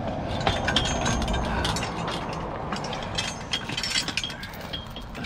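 NW Quik Pull lever-jack post puller being worked on a fence post set in concrete: irregular metallic clicks and clinks from its jaw mechanism and chain as it jacks the post upward.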